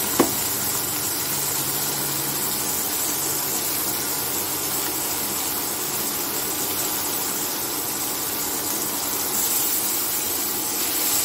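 Oil sizzling steadily in a steel kadai around bottle-gourd-leaf-wrapped egg parcels shallow-frying on low heat. A single metal clink of the spatula against the pan just after the start.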